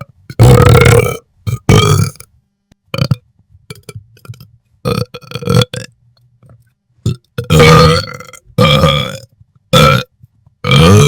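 A series of loud belches, about eight in a row, each short and low-pitched, with brief pauses between them.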